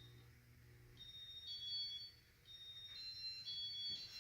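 Casablanca Panama II ceiling fan's electronic control beeping through its demo mode: a run of high electronic tones stepping between several pitches, with a short break about two seconds in.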